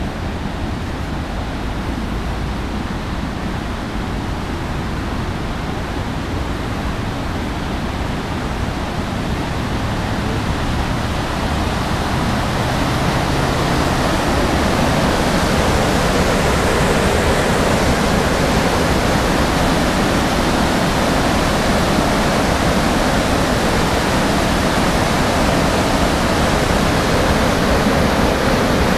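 Floodwater from a swollen creek rushing over a waterfall: a steady rush of water that grows louder near the middle.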